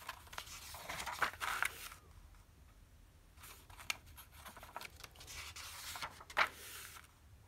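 Paper pages of a thin stapled booklet being turned by hand, several short rustles and swishes of paper.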